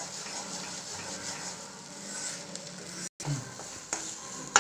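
A spatula stirring and scraping thick wheat rava kesari around a nonstick kadai on the stove, with a few sharp clicks of the spatula against the pan near the end. There is a momentary dropout about three seconds in.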